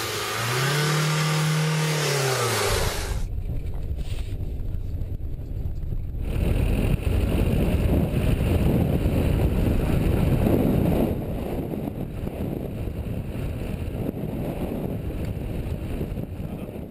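A car driving: an engine note rises and then falls over the first few seconds, then gives way to a steady low rumble of engine and road noise, which is louder for a few seconds in the middle.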